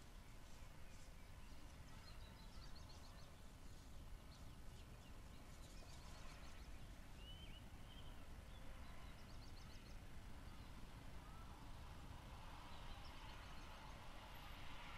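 Faint outdoor background: a low steady rumble with a few faint, distant bird chirps and short trills scattered through it.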